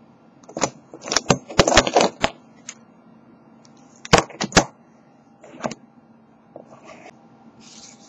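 Metal clinks and knocks as brass Brinks deadbolt cylinders are picked up and handled, a tight cluster of sharp clacks in the first two seconds and another few about four seconds in. A softer scraping follows near the end as a lock pick goes into the keyway.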